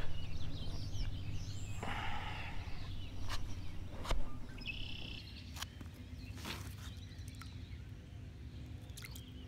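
Outdoor ambience: a low steady rumble with a few bird chirps, about two and five seconds in, and several small sharp clicks.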